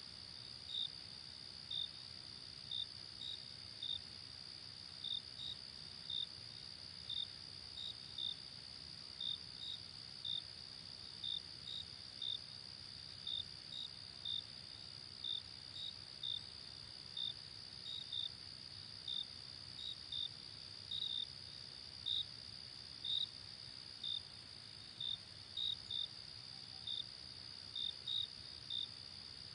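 Crickets chirping: short, high chirps repeating irregularly about once or twice a second over a steady high-pitched insect drone, with a faint low rumble beneath.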